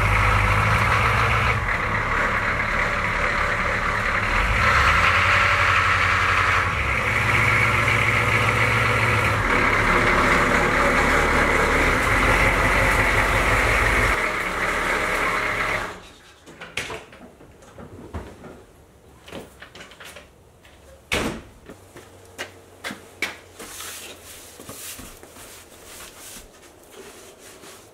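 A Humvee's diesel engine running loudly as the truck is driven up close, its note shifting up and down several times, cutting off suddenly about sixteen seconds in. After that, a snow brush scrapes and knocks against the Humvee's body in short, scattered strokes.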